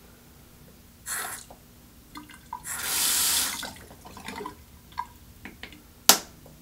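Handling noises at a faucet handle: small clicks and taps, a rushing, water-like noise about a second long in the middle, and one sharp snap near the end as the handle's trim cap goes back on.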